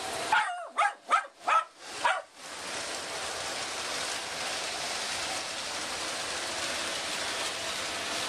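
A dog barks five times in quick succession, then a steady rushing noise follows, the Lionel toy trains running on their metal track.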